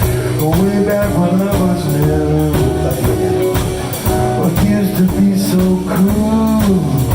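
Live blues band playing a song, with a steady beat.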